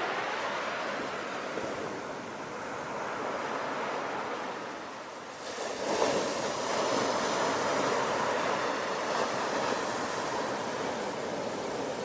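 Sea waves surging and washing steadily, with a bigger wave breaking about halfway through, after which the surf stays louder.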